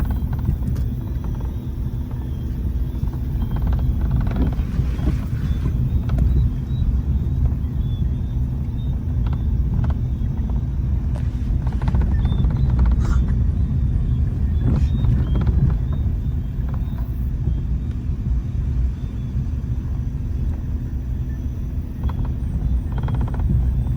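A vehicle engine running steadily at low speed, giving a constant low rumble, with a few faint clicks over it.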